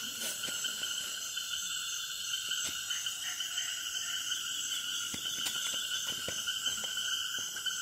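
Nighttime chorus of frogs and insects by a tropical forest stream: a steady, layered shrilling at several pitches, with a few faint scattered clicks.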